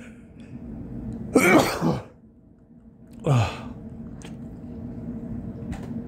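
A man sneezing twice: a longer sneeze about a second and a half in, then a shorter one about three seconds in, each dropping in pitch. A faint steady hum runs underneath.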